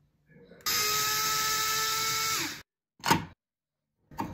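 Ryobi 4-volt cordless screwdriver's motor running steadily for about two seconds as it drives out a light-switch cover-plate screw, its whine dropping in pitch as it stops. A sharp click follows about three seconds in, and a short rattle near the end as the cover plate is handled.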